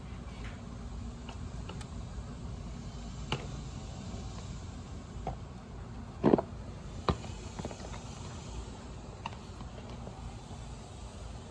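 Plastic clicks and clunks of a bagless vacuum's clear dust bin being handled and taken off, the loudest a double knock about six seconds in and a sharp click just after, over a steady low rumble.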